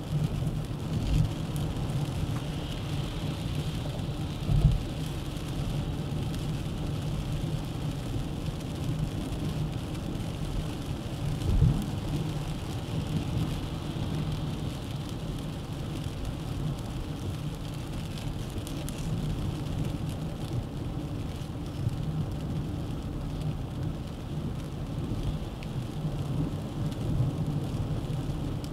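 A Dacia Duster 1.3 TCe 4x4 driving at speed: a steady rumble of road and tyre noise with low engine hum. A couple of dull thumps stand out about five and twelve seconds in.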